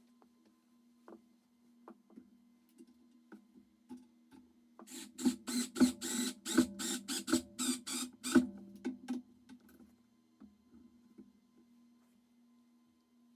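A quick run of about fifteen sharp rasping clicks, some three to four a second, lasting about four seconds, from screws being driven to fix plastic rails to a skateboard deck. A faint steady hum sits underneath, with a few scattered light clicks before and after.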